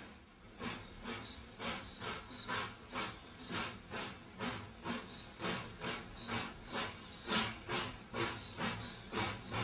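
Narrow gauge steam locomotive moving slowly, its exhaust chuffing in an even beat of about two puffs a second, each puff a burst of steam hiss.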